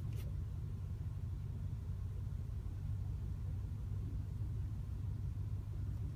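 Low, steady rumble of a 2016 Mercedes-Benz S550 Coupe's twin-turbo V8 at low revs, heard from inside the cabin as the car creeps at parking speed. A faint click sounds right at the start.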